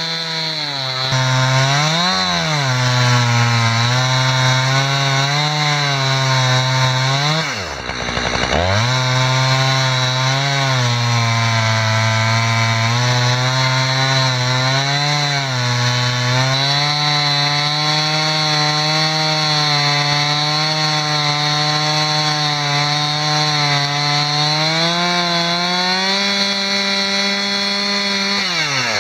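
Two-stroke chainsaw running under load as it rips lengthwise through a spruce log in a homemade Alaskan-style chainsaw mill, the engine note wavering as the cut goes. About eight seconds in the engine bogs down briefly and picks back up, and the note falls off at the very end.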